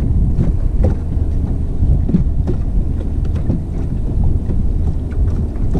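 Wind buffeting the microphone on an open jon boat: a loud, unsteady low rumble, with a few light knocks.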